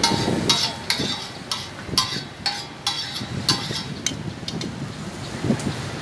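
Metal spatula scraping an empty round metal griddle clean: a quick run of short, sharp scrapes over the first four seconds or so, then fainter.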